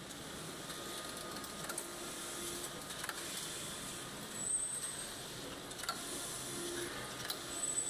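Computerized flat knitting machine running, with a steady mechanical hum and scattered sharp clicks from the carriage and needle beds. A brief high whine sounds about four and a half seconds in and again near the end.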